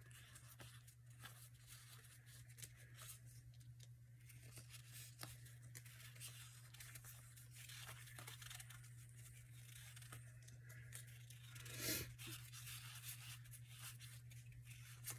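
Faint rustling and flicking of paper strips being handled and sorted by hand, over a low steady hum, with one louder brief sound about twelve seconds in.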